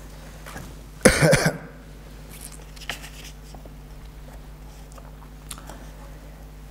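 A man's single loud cough close to the microphone, about a second in, over a steady low hum, with a few faint soft ticks afterwards.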